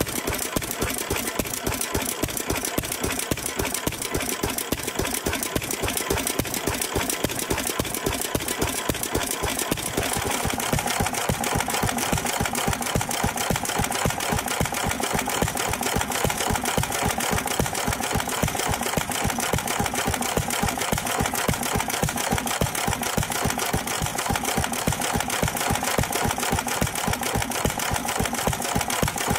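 A 1926 International Harvester M type 3 HP stationary engine running on a petrol/kerosene mix: a fast, even mechanical clatter that goes on without a break. About ten seconds in, its tone turns a little brighter.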